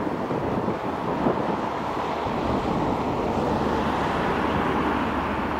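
Irish Rail 071 Class diesel locomotive's EMD two-stroke engine running steadily as it hauls a freight train slowly, mixed with wind noise on the microphone.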